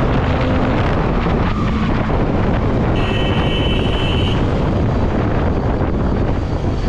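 Wind rushing over the microphone of a Hero Karizma XMR 210 motorcycle being ridden at speed, with its single-cylinder engine heard faintly under the air noise. About three seconds in, a steady high tone sounds for a little over a second.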